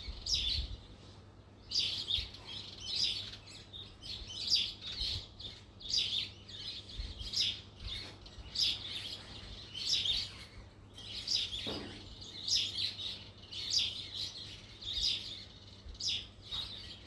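Birds chirping, short bright calls repeating about once a second, over a faint low rumble.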